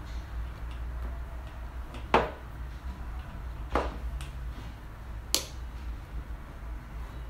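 Three light knocks of a plate being handled and moved on the table, about a second and a half apart, the first the loudest, with a few fainter ticks and a steady low hum underneath.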